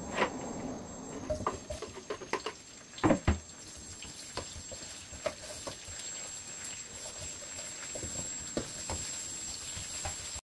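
Sliced onions frying in hot oil in a wok and being stirred with a slotted spatula: clicks and knocks as the onions go in and the spatula hits the pan, the loudest two about three seconds in, then a steady sizzle with scattered ticks.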